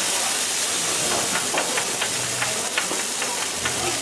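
Beef burger patties and chopped onions sizzling on a hot flat-top griddle: a steady, dense hiss. From about a second in until near the end, a run of short metallic clicks comes from the spatula and tongs tapping and scraping on the griddle.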